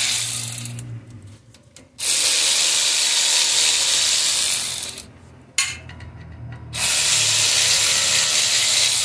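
Pneumatic air ratchet running in two long runs as it backs out the brake caliper bolts. The first run starts about two seconds in and lasts about three seconds. The second starts near seven seconds and runs on through the end.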